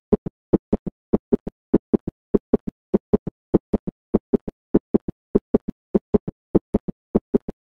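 Recorded heart sounds of an S3 gallop: short low thuds repeating in a galloping rhythm, with the third heart sound falling just after the second.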